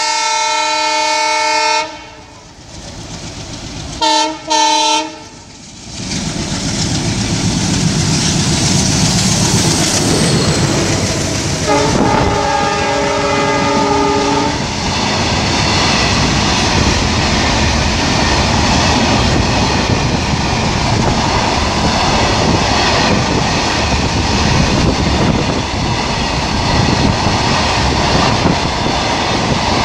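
A freight locomotive's horn sounds a long blast, then two short blasts about four seconds in, and another blast about twelve seconds in. From about six seconds in, the train of bottom-discharge hopper wagons runs past close by, rumbling steadily with a clatter of wheels over the rail joints.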